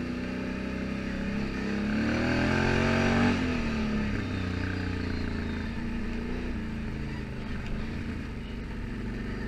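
Can-Am Outlander ATV engine under way: it revs up for about two seconds, cuts back sharply a little after three seconds in, then runs fairly steady at lower revs.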